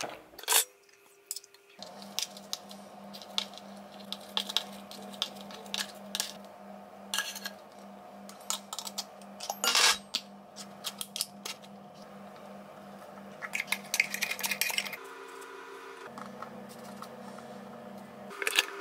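Cutlery clicking and scraping against a tuna tin and a salad bowl as a salad is put together, in many short sharp clinks. Soft background music with held chords plays underneath.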